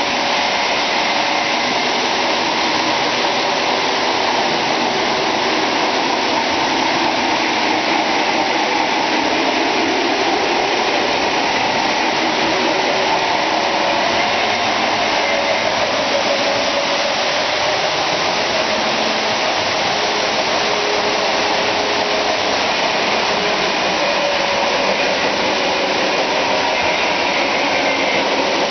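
Several O-gauge Lionel electric model trains running at once: a steady whir and rumble of motors and metal wheels on three-rail track, with no break.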